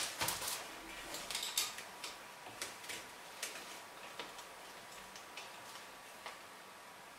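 Ratchet of a 3/8-inch-drive torque wrench clicking in short, irregular runs as the cylinder head bolts of a Yamaha 125 scooter engine are snugged down a quarter turn at a time.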